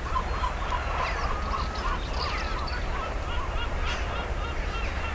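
Wild birds calling: a quick run of short, repeated chirping notes, with higher falling whistles mixed in, over a steady low rumble.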